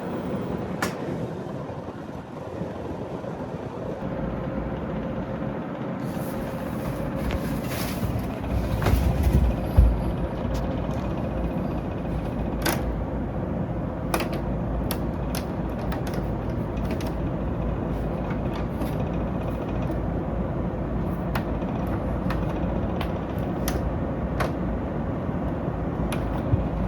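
Panasonic LJ22 split air conditioner's indoor unit running with a steady airflow noise, broken by a series of sharp, irregular clicks that come more often in the second half, and a louder low rumble around nine seconds in. The owner puts the clicking down to the fan vibrating and knocking against a gap in the drain pan, a fault that keeps returning on this unit.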